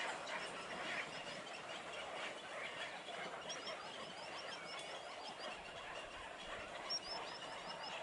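Dense chorus of many waterbirds calling at once in a mangrove colony, with overlapping harsh calls throughout. A quick run of short high chirps comes in the middle.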